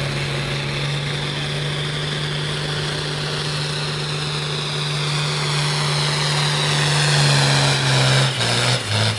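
John Deere farm tractor's diesel engine under full load pulling a weight-transfer sled: a steady, loud engine drone with a high whine that slowly falls in pitch. Near the end the engine note drops in two steps.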